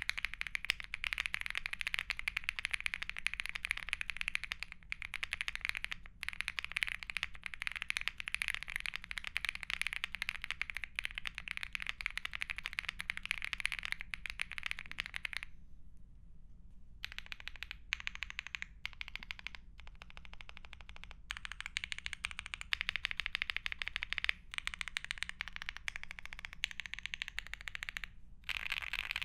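Typing on a Lucky65 aluminum, gasket-mounted 65% mechanical keyboard in its stock build: Coconut Latte switches under GMK Shoko doubleshot ABS keycaps, a polycarbonate plate and pre-lubed stabilizers. The keystrokes come thick and fast, with a brief pause about halfway through, a few seconds of sparser keystrokes, then dense typing again.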